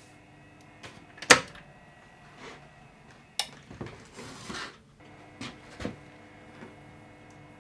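Hands working at an electrical control box: several sharp clicks and knocks, the loudest about a second in, with a short rustle around four seconds, over a faint steady electrical hum.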